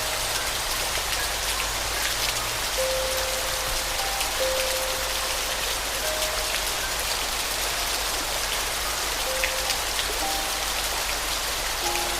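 Steady rain falling on a surface, a dense even patter with scattered sharper drops, under a soft piano melody of slow, sustained single notes.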